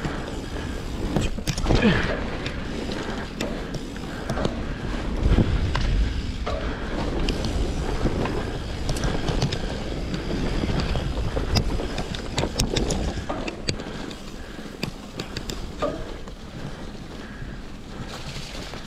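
Mountain bike rolling fast down a dry, rocky dirt trail: tyres rumbling and crunching over dirt and stones, the bike rattling with scattered sharp clicks and knocks, and wind buffeting the microphone. It gets quieter near the end as the trail turns to smooth grassy singletrack.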